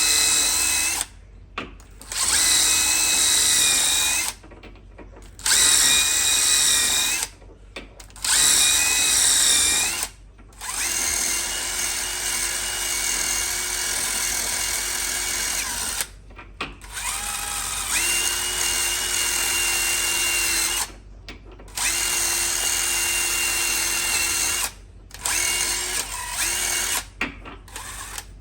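Wire wheel on a handheld power tool, spinning and brushing the metal of an off-road control-arm joint's center knuckle clean. The motor whine comes in about ten runs of one to five seconds, dropping in pitch as the trigger is released between them.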